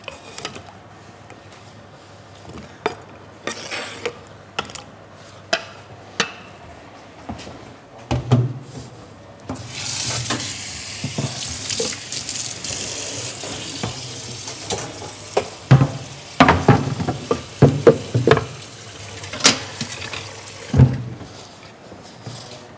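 Cut potato wedges being washed and drained at a kitchen sink: water running for about five seconds near the middle, with scattered knocks and clatter of bowls and utensils before and after.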